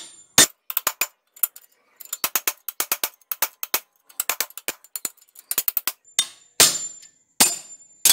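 Steel chisel tapping repeatedly against a steel bicycle hub bearing cup to flare its rim open. Quick runs of light metallic taps give way near the end to a few heavier, ringing strikes.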